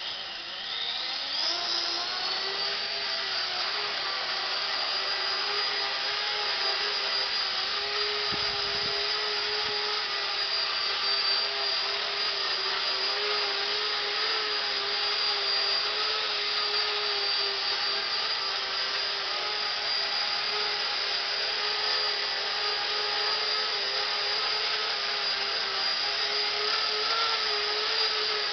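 Walkera CB180Q micro RC helicopter spooling up, its whine rising in pitch over the first couple of seconds, then hovering with a steady high-pitched whine of motor and rotors that wavers slightly with the throttle.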